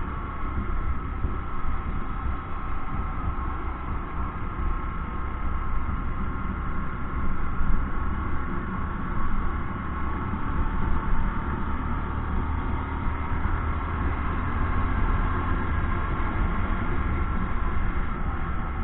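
Single-cylinder Bajaj Discover motorcycle cruising on the road, its engine running steadily under a heavy rumble of wind buffeting the microphone.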